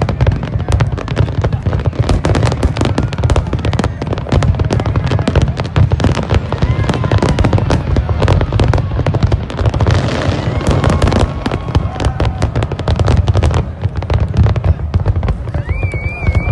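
Closing barrage of a large aerial fireworks display: many shells bursting in rapid succession with dense crackling over a deep continuous rumble, thinning out just before the end.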